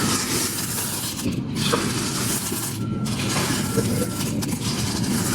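Many small beads clicking and clattering against each other in a continuous dense rattle.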